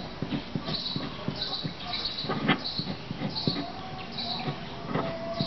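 A gel pen scratching and tapping on paper as a formula is written, with a short high chirp repeating every half second or so in the background.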